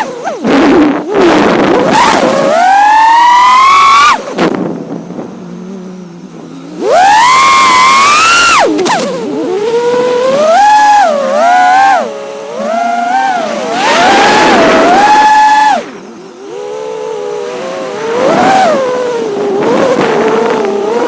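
5-inch FPV quadcopter's brushless motors and propellers whining, the pitch climbing and falling again and again with the throttle. The whine drops off about four seconds in and comes back loud and high about three seconds later.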